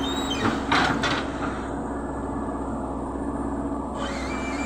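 CAT hydraulic excavator running steadily as its bucket digs into sandy soil, with a short cluster of louder scraping knocks about a second in.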